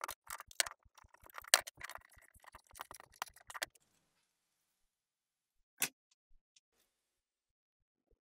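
Metal C-clamps and small pump parts clinking and knocking against each other and a wooden workbench as they are handled: a dense run of clicks for the first few seconds, then one sharp click a couple of seconds later.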